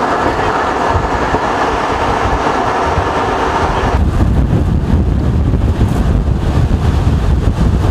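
Steady rushing roar of storm wind and rumble. About four seconds in it switches abruptly to heavy, gusty wind buffeting the microphone.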